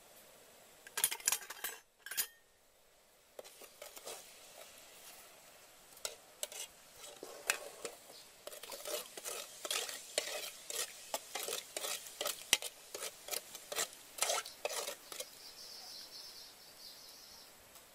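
A metal spoon stirring in a metal cooking pot of water, clinking and scraping against its sides in irregular, quick strokes, with a short flurry about a second in and a long run of clinks through the middle.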